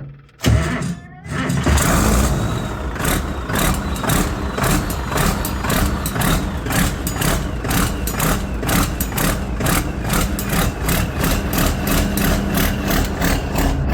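An old White tractor's engine starting about half a second in, then running steadily with an even pulsing beat. It is hard to start because it has only one battery.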